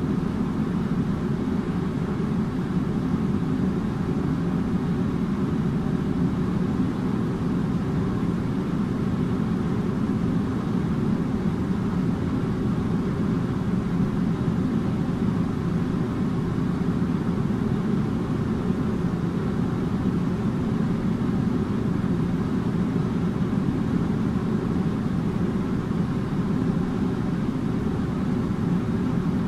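Air conditioner running steadily: a constant low hum with a hiss of moving air above it.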